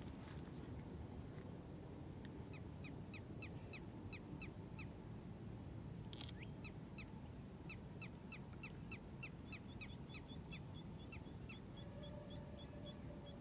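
A bird calling in two runs of short, sharp, falling notes, about four a second. A faster run of higher, shorter notes comes in near the end. Under it is a steady low background hiss.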